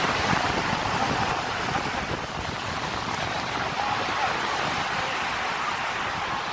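Steady rushing of surf and wind on a beach, with wind buffeting the microphone.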